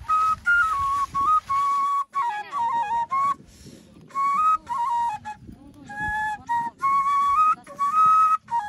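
Background music: a flute playing a slow melody of held notes that step up and down, with a few short breaks between phrases.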